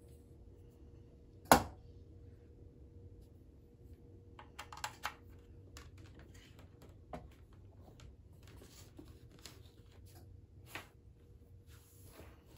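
A plastic desk lamp being handled and its arm folded down and raised again: one sharp loud click about a second and a half in, then a run of lighter clicks, knocks and rubbing from the joints and casing.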